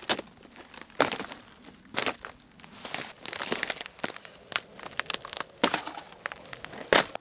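Ice being broken: sharp cracks and crunches roughly once a second, with a crinkling rustle of breaking pieces in between.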